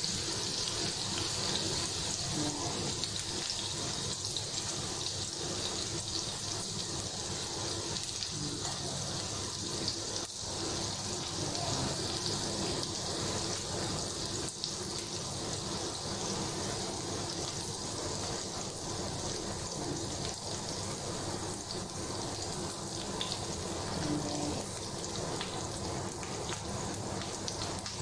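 Oil sizzling steadily in a hot frying pan as eggplant rings fry.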